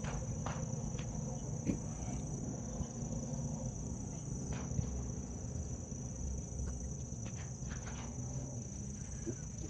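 Steady high-pitched drone of an insect chorus, with a low rumble underneath and scattered short clicks.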